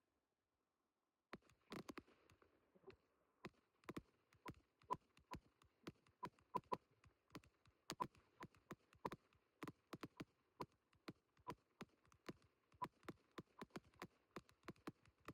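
Fireworks going off in a rapid, irregular string of sharp bangs, several a second, starting a little over a second in, over a faint hiss.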